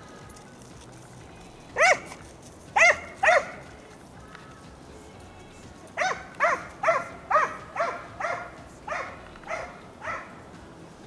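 Hunting hound baying as it works a hare's scent trail: a couple of barks, then a steady run of about nine barks, roughly two a second, in the second half.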